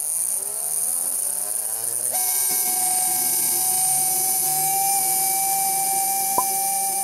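Small electric motor spinning up with a rising whine, then running at steady speed about two seconds in with a high whine and hiss. A single sharp click about six seconds in.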